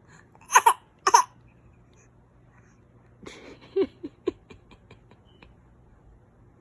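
A baby fake-coughing twice, two short forceful coughs about half a second apart. A few seconds later comes a breathy burst and a few short laughing sounds, with some faint clicks.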